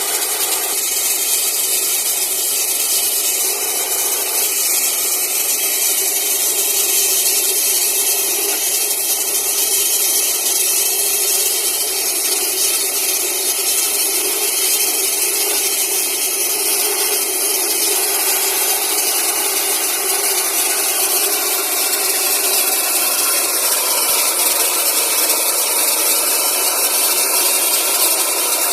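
Air compressor running steadily while flushing a borewell, with a loud, even hiss of rushing air.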